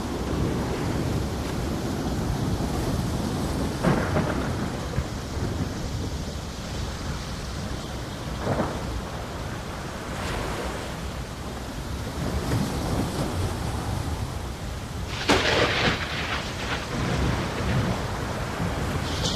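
Steady rain with rolling thunder and a few sharp cracks, the loudest about fifteen seconds in.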